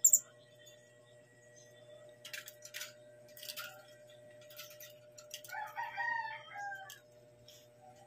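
Philippine hanging parrot giving one sharp, very high chirp, the loudest sound, followed by a few short scratchy high-pitched sounds. About five and a half seconds in comes a longer, lower call lasting about a second and a half.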